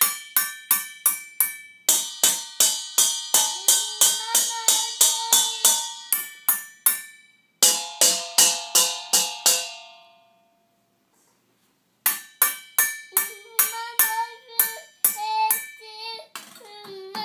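Upturned stainless-steel mixing bowls struck rapidly with a wire whisk, about four hits a second, each hit ringing with a bright metallic tone. The hitting stops twice, the second time letting the ring die away for a couple of seconds before it starts again, and a young child's sing-song voice comes in over the hits.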